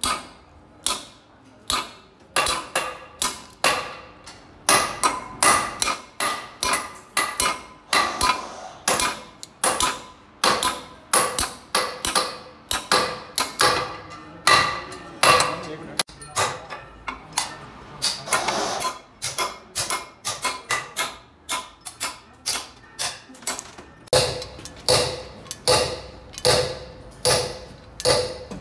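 Repeated hammer blows on steel tools set against a 4BD1 diesel cylinder head: sharp metallic strikes about one to two a second, the later ones leaving a short ringing note.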